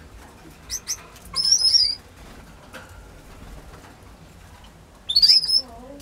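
Canary calling: two quick high chirps just before a second in, then a short, loud, wavering whistled call, and another rising call near the end.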